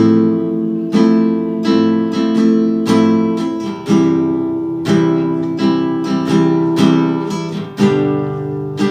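Acoustic guitar strummed in a steady rhythm through plain open chords of the A minor, F, C, G progression, the chord changing about every four seconds.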